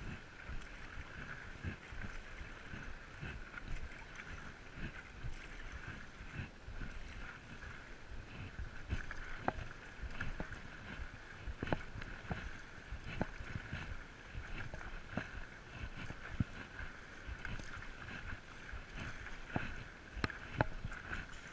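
Stand-up paddleboarding on the sea: water sloshing against the board and paddle, with low wind rumble on the microphone. In the second half there are sharp ticks every second or two, from the paddle strokes.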